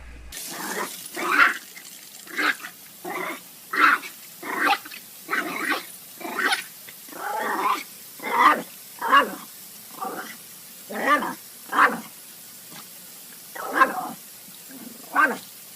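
A dog vocalizing in a long series of about twenty short pitched calls, one every half second to a second.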